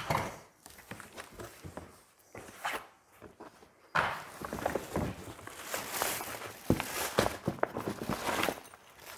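Unpacking noise: cardboard box flaps being handled with a few knocks, then from about four seconds in, plastic packaging crinkling and a fabric bag rustling as parts are lifted out of the box.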